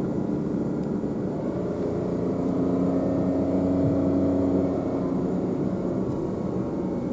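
Car engine and road noise heard from inside the cabin while driving. The engine note climbs a little about two and a half seconds in and settles back after about five seconds.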